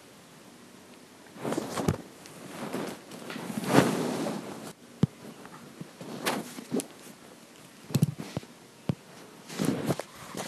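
Irregular rustles, soft thumps and a few sharp clicks of movement and handling noise, starting about a second and a half in.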